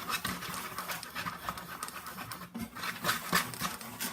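A small spoon stirring and scraping in a cup of borax and water, a quick irregular run of scratches and light clinks.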